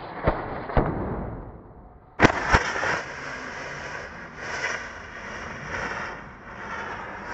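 Safety-match heads on a homemade rotating cardboard firecracker flaring and fizzing as it spins. Two sharp cracks come about half a second apart near the start, then two louder cracks about two seconds in, followed by a continuing hiss that swells and fades.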